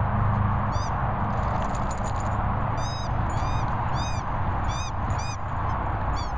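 Wind buffeting the microphone as a steady rumble, with about six short, high squeaks from about a second in, each rising and then falling in pitch.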